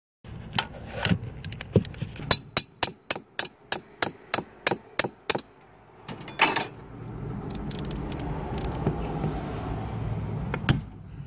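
Ratchet wrench clicking on a 10 mm deep socket as it works a glow plug loose on a Sprinter diesel: a run of sharp, evenly spaced clicks, about three to four a second, that stops about halfway through. A single louder clack follows, then a steady low rumble with a few scattered clicks.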